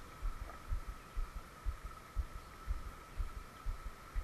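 Regular low thumps about twice a second, the rhythm of a spinning reel's handle being cranked on a spinner retrieve, under a faint steady high hum.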